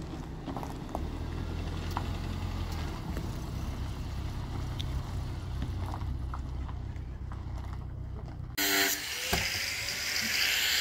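Peugeot 405 car driving slowly, its engine running with a steady low hum. About eight and a half seconds in, the sound switches abruptly to a louder, even rushing noise.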